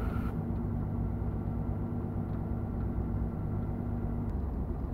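UL Power engine and propeller of a Van's RV-7 running at low power while taxiing, the engine still warming up with its oil temperature low; a steady, even hum heard from inside the cockpit. Its pitch shifts slightly a little over four seconds in.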